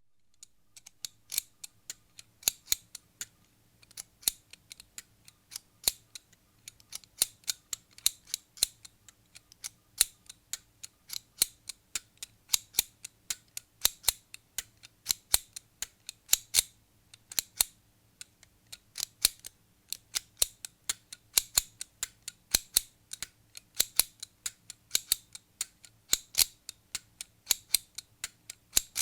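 Household scissors cutting: a long run of sharp snips, coming irregularly about two to four a second, each blade closure a crisp click.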